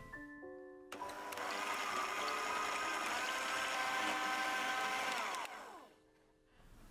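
Electric hand mixer whipping cream in a bowl: the motor switches on about a second in, runs steadily with a whine over the whisking noise, and winds down with a falling pitch near the end.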